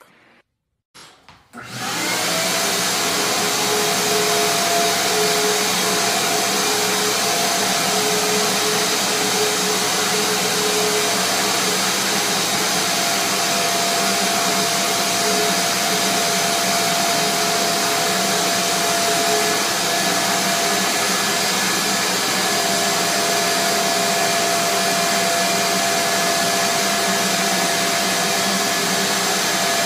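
Ridgid wet/dry shop vacuum running steadily, its hose worked over a dog's coat. The motor's whine comes in about two seconds in and holds on an even pitch.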